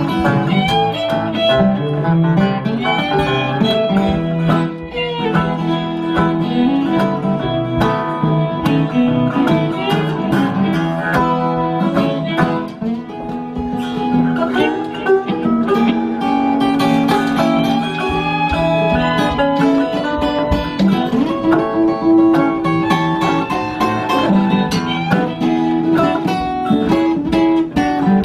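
Instrumental break of a live acoustic blues tune: a metal-bodied resonator guitar and an acoustic guitar playing together with a bowed fiddle.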